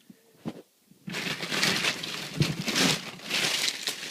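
Packing paper being pulled off and crumpled by hand: a loud, uneven crinkling rustle in swells, starting about a second in.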